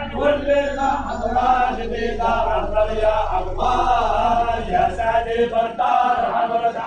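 Many men chanting together in phrases of a second or two, with short breaks between them: a Sufi dhikr chant at a zawiya of the Alawiya order.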